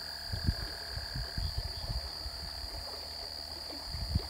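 A steady high-pitched drone of night insects, with scattered low rumbles of wind or handling on the microphone.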